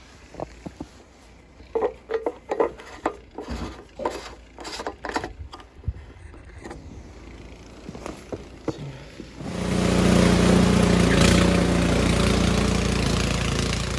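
Scattered knocks and clicks of handling, then, about nine and a half seconds in, a gasoline snow blower engine starts abruptly and runs steadily.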